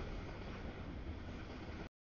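Freight cars rolling past on the rails: a steady rumble of wheels on track that cuts off abruptly near the end.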